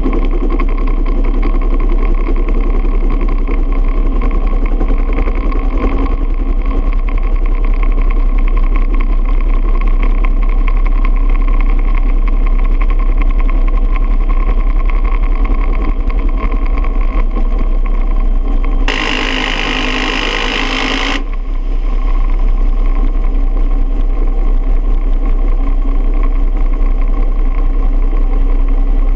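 Bell UH-1 Huey helicopter's turbine and rotor running steadily, with one continuous burst of about two seconds from an M134 minigun firing 7.62x51mm about two-thirds of the way in.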